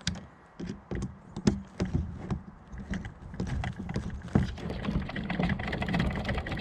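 Irregular clicks and knocks of hands and a tool working a hose clamp onto a hose until it is fastened.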